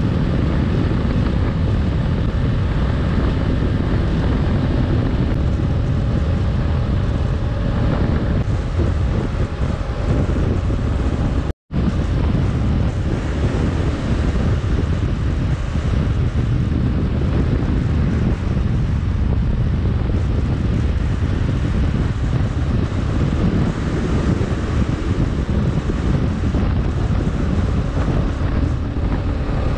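Heavy wind rushing over the microphone of a Kawasaki KLR 650 at road speed, with the bike's single-cylinder engine running steadily underneath. The sound cuts out for an instant about twelve seconds in.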